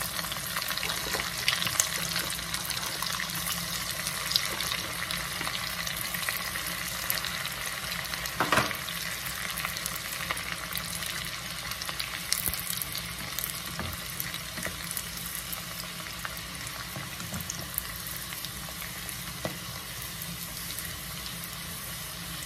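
Food deep-frying in a small stainless-steel pot of hot oil: a steady crackling sizzle as it is stirred with a wooden spatula, with one sudden louder crack about a third of the way through.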